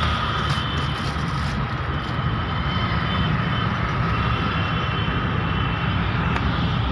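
Road vehicle running steadily: a deep engine and road rumble with a thin, steady whine above it.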